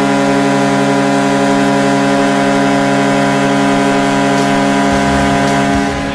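Vancouver Canucks arena goal horn sounding one long, steady, loud blast, a rich chord-like horn tone that cuts off just before the end. About five seconds in, a low rhythmic beat comes in under it.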